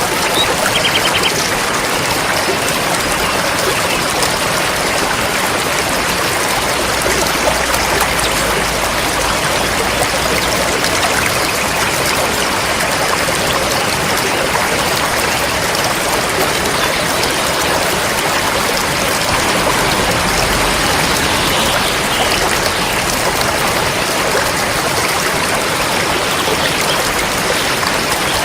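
River water flowing steadily over rocks, a continuous rushing and trickling.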